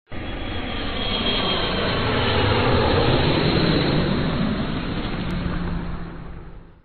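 Jet aircraft engine noise, a dense steady rush that swells a little and then fades out over the last second.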